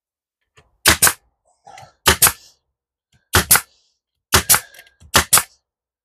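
Pneumatic brad nailer firing five times, about once a second, driving brads into wood; each shot is a quick double crack.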